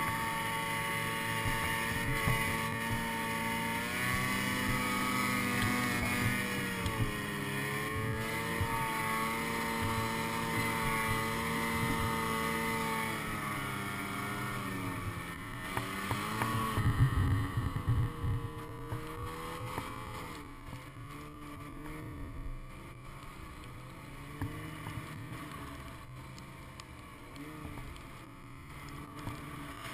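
Ski-Doo Summit snowmobile's two-stroke engine running under load through deep powder, its pitch rising and falling with the throttle. Just past halfway there is a short burst of loud rough noise, then the engine falls quieter and lower for the rest as the sled bogs down in the snow.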